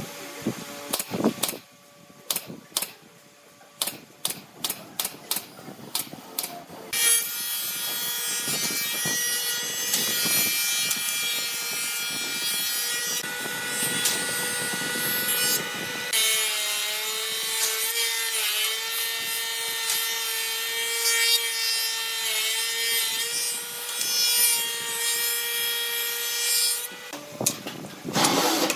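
Short clicks and knocks from work on a wooden chair frame with a cordless drill-driver. Then a wood planer runs steadily with a whine as a pine board feeds through, its tone shifting about halfway, and it stops near the end.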